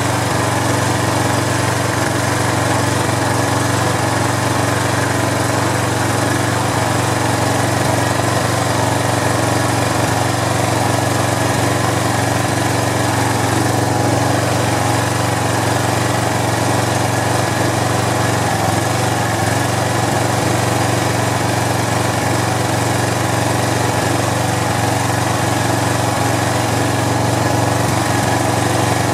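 Briggs & Stratton 875-series overhead-valve engine on a Troy-Bilt pressure washer running steadily at an even speed, smooth and pretty quiet, now that its varnished carburetor has been cleaned.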